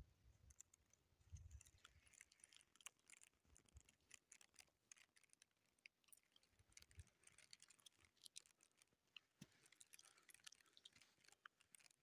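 Near silence, with faint scattered clicks and a few soft low thumps.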